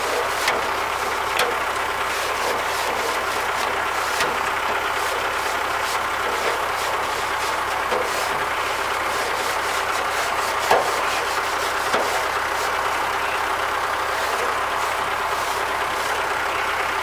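Compressed-air blow gun hissing steadily as it blasts dust out of a clogged radiator core, with a few light ticks scattered through.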